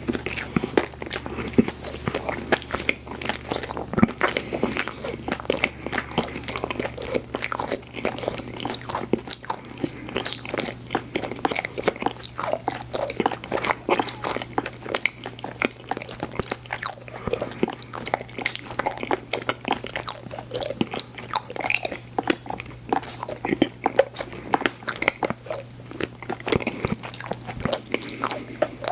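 A person chewing and biting candy with the mouth close to the microphone: a dense, irregular run of crunchy, wet mouth clicks.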